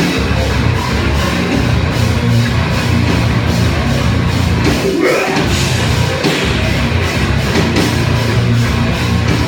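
A live rock band playing a loud, heavy metalcore song, with a dense wall of distorted guitar, bass and drums. A rising slide in pitch comes about five seconds in.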